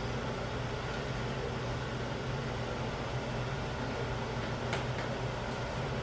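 Steady mechanical hum with a hiss, like a running fan, with two faint clicks near the end.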